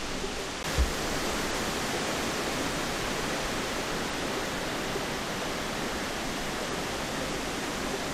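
Water rushing steadily through a pond's sluice gates, an even hiss that grows a little louder just under a second in. A single low thump comes at about the same moment.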